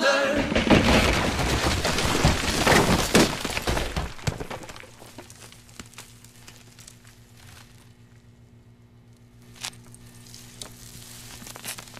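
Clattering sports-hall sound from a volleyball rally, dense noise with sharp knocks, for about four seconds. It then fades to a faint low hum with a few isolated clicks.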